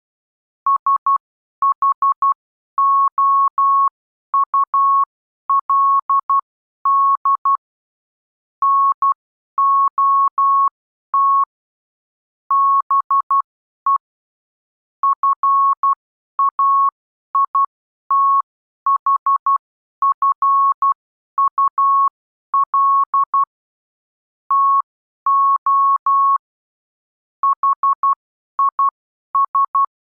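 Morse code (CW) sent as a single steady tone of about 1 kHz. It is keyed on and off in dots and dashes, with short gaps between letters and longer gaps between words, spelling out the English text "I should not be faithful to his…".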